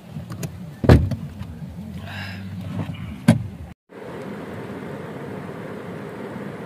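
Heard from inside a car in the rain: two loud knocks in the first few seconds, then a short break in the sound, then a steady hiss of rain on the car's roof and windows.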